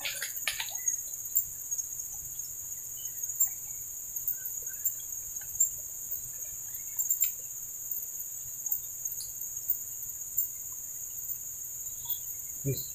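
Steady high-pitched insect chorus, two unbroken shrill drones, with faint scattered chirps; a short low thump near the end.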